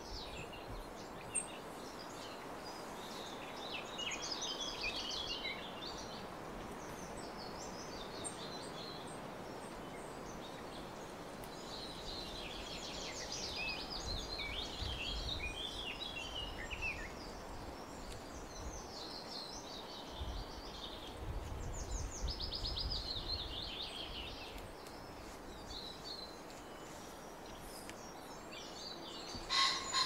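Songbirds singing in the background: several bursts of rapid trilling song, each a few seconds long, over steady outdoor background noise, with a sharp click near the end.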